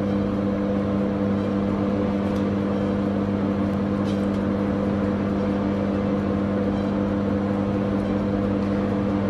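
Microwave oven running: a steady hum over an even whir, unchanging throughout.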